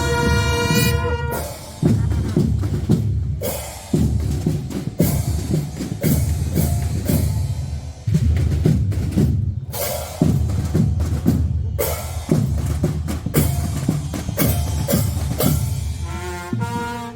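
Fanfare band: a held brass chord cuts off about a second in, and the drum section carries on alone with bass drum and snare drums, a heavy accent about every two seconds. The brass comes back in right at the end.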